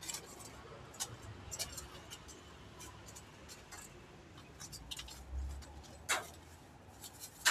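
Metal serving tongs clicking against a steel tray and crisp fried banana pieces as they are picked up, a run of light scattered clicks with a sharper one about six seconds in.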